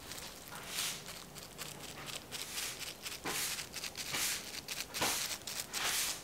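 A rag rubbed hard by a gloved hand over the painted lower leg of a Fox 32 suspension fork, scrubbing off its decals. Irregular hissing, crinkling strokes come roughly once a second.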